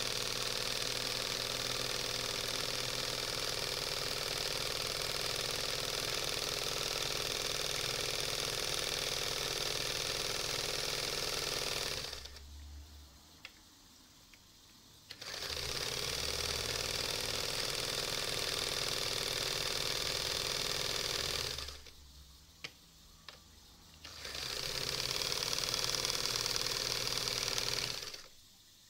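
A Singer 320K zigzag sewing machine sews through thick leather-like material. It runs steadily in three spells and stops twice for a few seconds, with a few light clicks in each pause, then stops just before the end.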